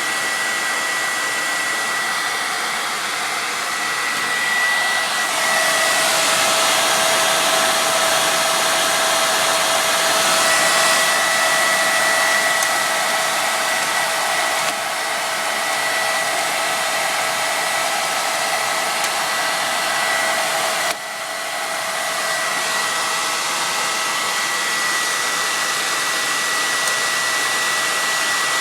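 Hair dryer blowing steadily, with a thin whine over the rush of air. It gets louder and brighter about five seconds in, eases back about fifteen seconds in, and dips briefly a little after twenty seconds.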